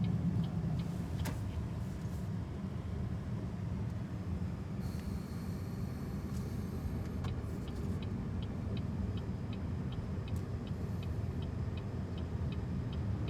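Cabin sound of a BYD Seagull electric car driving: steady low road and tyre rumble, with the turn-signal indicator ticking evenly, a few clicks a second. A brief hiss about five seconds in.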